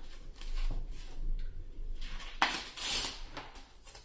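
Trading cards being handled and flipped through by hand: light clicks and card-on-card sliding, with two short swishes a little past the middle.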